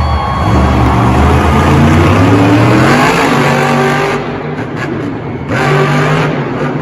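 Monster truck engine revving hard. The pitch climbs, then the level drops about four seconds in before the engine picks up again.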